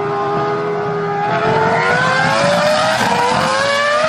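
Formula One car engine at high revs, accelerating through a corner, its note rising steadily in pitch as the car passes and pulls away.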